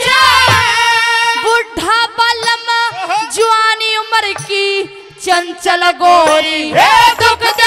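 A woman's amplified voice singing a Haryanvi ragni in long, sliding, ornamented notes through a PA, with a rising glide near the end. Under it are steady held accompaniment notes, likely from the harmonium, and occasional low drum beats.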